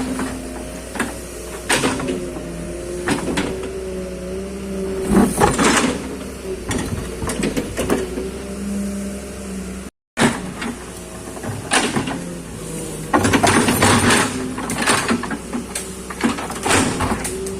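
Excavator working: a machine runs with a hum that shifts in pitch, broken by repeated knocks and clanks, which grow busier in the last few seconds. The sound cuts out completely for a moment about ten seconds in.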